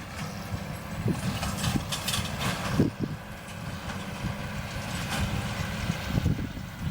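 John Deere 7820 tractor's diesel engine running steadily, with a Massey Ferguson 2270 large square baler working behind it and a few heavier knocks, about a second in and just before three seconds.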